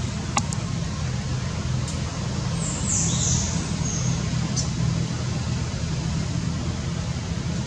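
Steady low rumble of distant road traffic with a hiss over it. A few short, high, falling chirps come about three seconds in.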